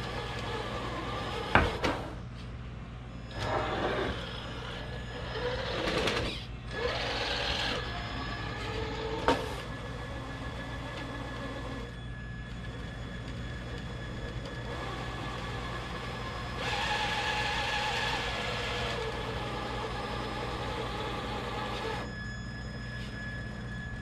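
Small electric motor and drivetrain of a Traxxas TRX4 RC rock crawler whirring in short bursts, with one longer run near the end, as it is driven up a slippery quartz slab. Two sharp knocks come about a second and a half in and again about nine seconds in.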